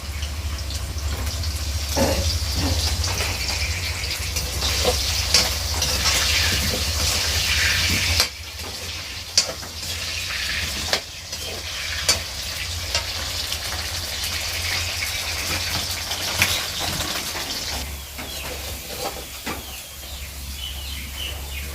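Food frying in hot oil in a pan, a continuous sizzle, stirred with a spatula that gives scattered scrapes and clicks against the pan.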